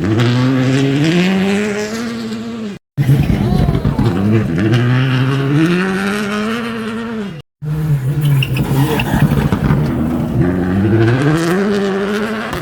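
Rally cars accelerating hard, engine pitch climbing steeply as each car drives through the gears. Three separate passes follow one another, each cut off abruptly by a moment of silence.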